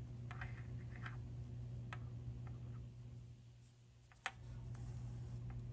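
Small scattered ticks and clicks of hand-sewing, as a needle and thread are worked through the layers of a cloth mask, over a steady low hum. The sharpest click comes about four seconds in, just as the hum returns after a brief drop.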